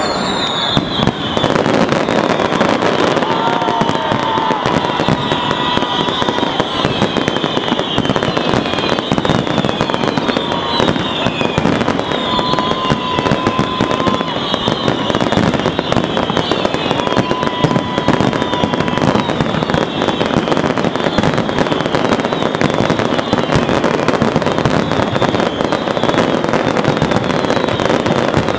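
Fireworks display: a dense, continuous barrage of bangs and crackling, with high whistles falling in pitch every second or two.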